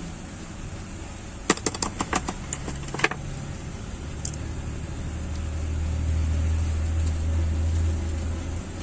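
A quick run of small sharp clicks and taps, hand tools working on a small laptop connector's pins, over a low steady hum that swells in the second half.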